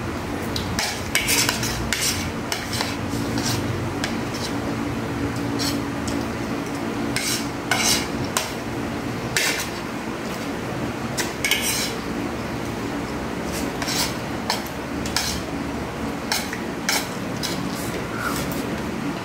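Metal spoons and forks clinking and scraping against plates at irregular moments as two people eat, over a steady low hum.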